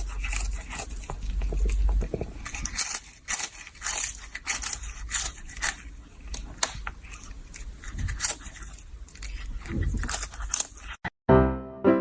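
An animal chewing and crunching: many irregular crisp clicks and crunches, with some low rumble in the first couple of seconds. Near the end it cuts off and piano music starts.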